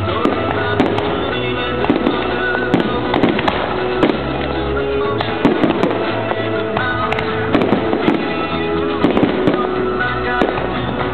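Fireworks going off over music: frequent sharp bangs and crackles, several a second, on top of a song with a steady bass line and held notes.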